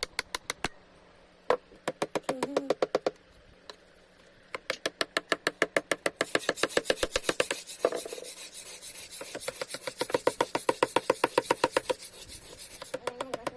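Quick back-and-forth rubbing strokes of a hand tool on wood, about eight strokes a second, in runs of a few seconds with short breaks between.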